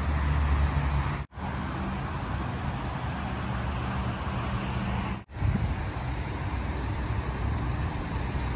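Steady city street noise with a low traffic hum. It cuts out briefly twice, about a second in and again about five seconds in.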